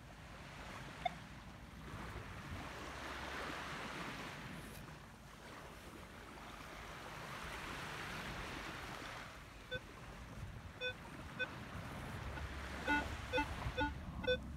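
Surf washing on the shore, swelling and fading twice. Over it a Minelab Equinox 800 metal detector gives short target beeps as its coil sweeps the sand: a few spaced beeps past the middle, then a quicker run of them near the end.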